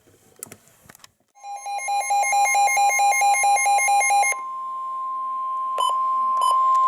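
NOAA Weather Radio warning alarm tone: a steady, single high tone that starts about a second and a half in and announces a new severe thunderstorm warning. For its first three seconds a rapid beeping of about five beeps a second sounds over it. Two clicks come near the end.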